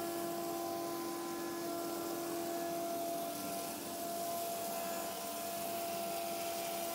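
Axminster Professional planer thicknesser feeding a square hardwood blank through in thicknessing mode, the cutter block planing it with a steady hiss over a whine of several steady tones.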